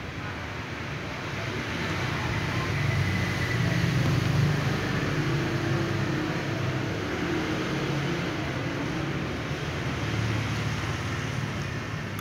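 A low, steady rumble that swells about two seconds in, peaks a little before the middle, and eases off toward the end.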